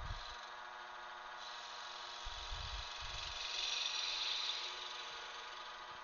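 Wood lathe motor running steadily with a gouge cutting into a spinning cottonwood blank; the cutting noise comes in about a second and a half in, is loudest around four seconds and fades out near the five-second mark.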